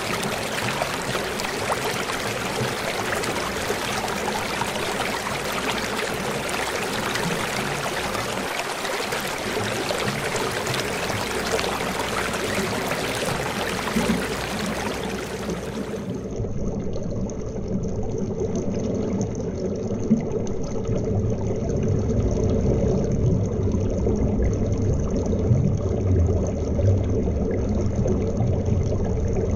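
Shallow river current rushing and splashing over a gravel bed, heard at the water's surface. About halfway through the sound turns muffled, losing its hiss, and a deeper low rumble takes over: the same flow heard from underwater.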